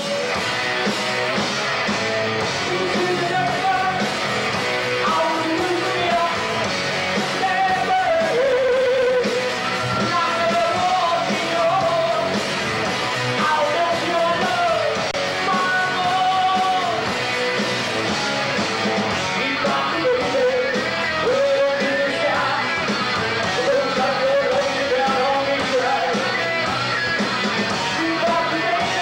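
Live rock band playing: a lead singer singing over electric guitars, bass and drums.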